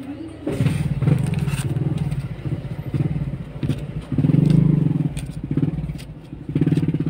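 Motorcycle engine running, its low, rapidly pulsing sound swelling and easing off several times.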